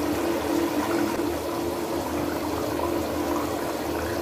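Tomato-based sauce boiling in a frying pan: steady bubbling, with a steady low hum underneath.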